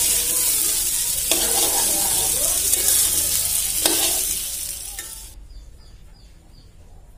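Carrot and potato pieces sizzling as they fry in oil in an aluminium karai, with a metal spatula scraping and clattering as it stirs them; the pieces are fried through. The sizzling cuts off abruptly about five seconds in.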